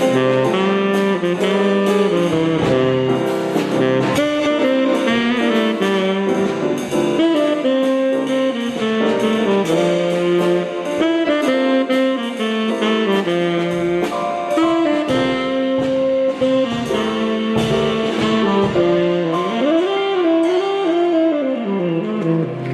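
Live jazz instrumental led by saxophone with brass and a steady drum beat, the melody rising and falling in a run near the end.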